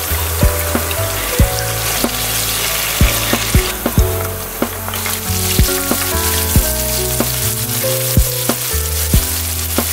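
Minced pork and garlic sizzling in hot oil in a frying pan while being stirred. The sizzle drops briefly about four seconds in, then picks up again with chopped scallions in the oil.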